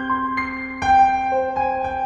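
Background music: a slow keyboard melody of held notes over a sustained low note, with a louder chord coming in about a second in.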